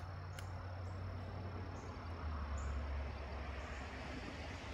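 Crickets trilling steadily over a low, steady hum.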